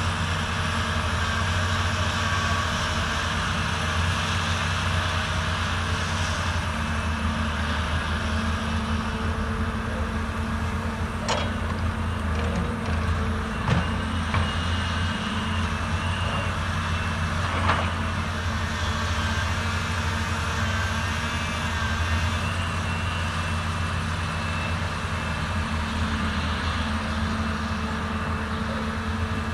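A CAT 320D RR excavator's diesel engine running steadily under working load, with a few sharp knocks in the middle.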